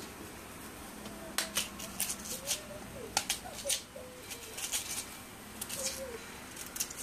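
Kitchen knife peeling raw cassava: a run of short, irregular scraping cuts as the blade strips away the tough brown skin, starting about a second and a half in.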